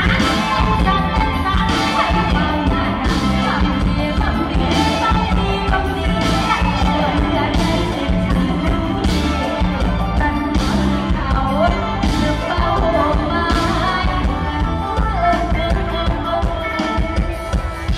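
Live Isan mor lam band music played loud through a PA, with vocals sung into a microphone over a drum kit and amplified instruments, cymbal-like crashes about every second and a half.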